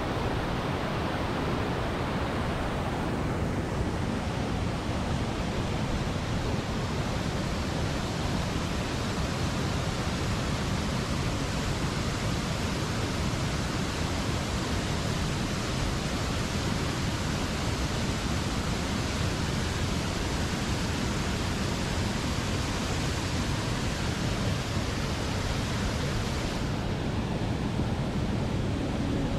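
Steady rush of falling water, a waterfall cascading down a mountain canyon. It sounds slightly duller near the end.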